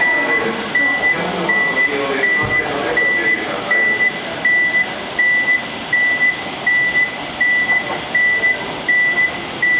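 Railway station platform alarm beeping: one high electronic tone repeating a bit over once a second, each beep about half a second long, over general platform noise with faint voices during the first few seconds.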